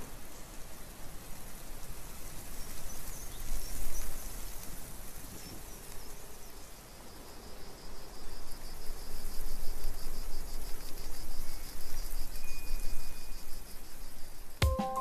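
Outdoor ambience of insects trilling over a steady noisy hiss, with a rapid pulsing buzz high in pitch from about halfway through. Music comes in right at the end.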